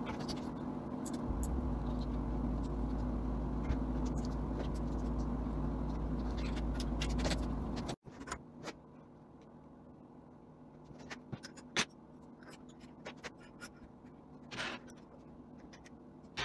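Scattered light clicks and rattles of cables and metal CNC router parts being handled, over a low steady hum that cuts off abruptly about eight seconds in, after which only the quieter clicks remain.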